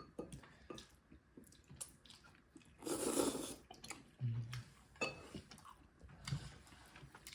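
Close-up eating sounds of someone chewing tteokbokki, the chewy rice cakes giving small wet mouth clicks, with a louder noisy stretch about three seconds in.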